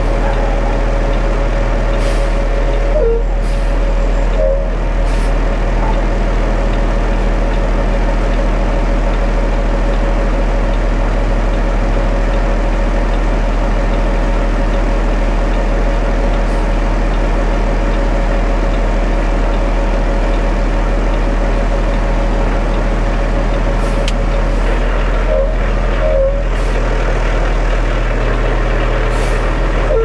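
Concrete mixer truck's diesel engine running steadily while the drum turns and discharges concrete down the chute, a constant low hum with a steady tone over it that drops out near the end.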